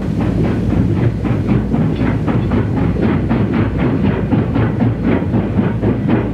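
Steam locomotive exhaust chuffing in a steady rhythm of about three or four beats a second, over a low rumble.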